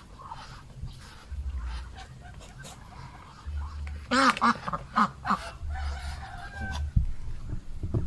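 Muscovy ducks feeding at a basin of grain, with scattered short taps and a few short calls about halfway through.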